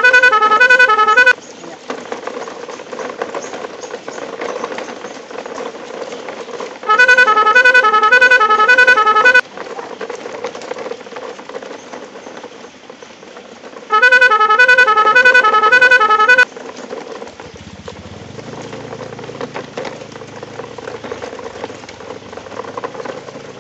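A two-tone vehicle horn sounding three times, each blast about two and a half seconds long and alternating rapidly between a high and a low note. Between the blasts comes a quieter, steady crackle of plastic toy truck wheels rolling over wet gravel.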